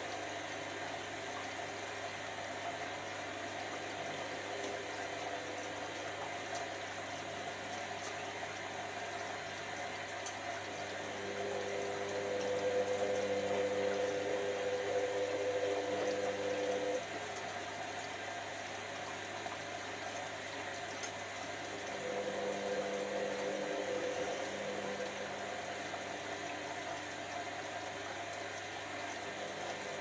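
Hotpoint HV5L125 washing machine running, with a steady hum and water noise. About a third of the way in its motor note rises into a louder hum for about five seconds, then drops off abruptly, and a weaker swell follows a few seconds later. The motor is running at unstable speeds, a fault that appeared after a replacement control board was fitted.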